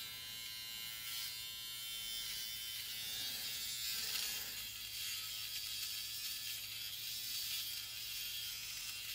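Flawless Brows battery-powered eyebrow hair remover buzzing steadily as it is run over the eyebrow, trimming stray hairs.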